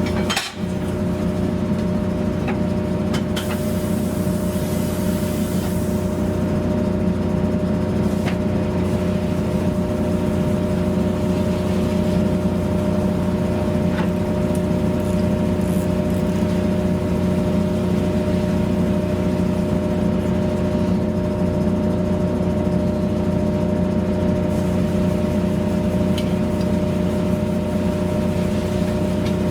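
A machine or engine running with a steady, constant-pitch drone, with a few faint clicks over it.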